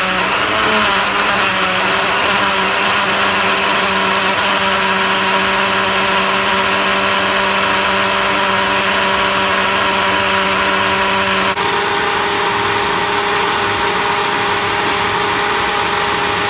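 Countertop electric blender running steadily as it blends bananas, milk and baby spinach into a smoothie. Its hum changes abruptly about two-thirds of the way through.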